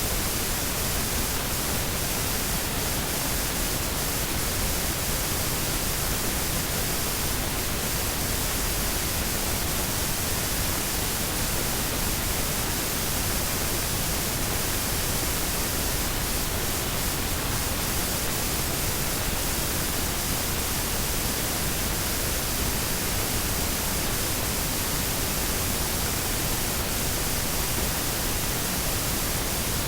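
Washing machine running: a steady, even rushing noise with no rhythm or changes.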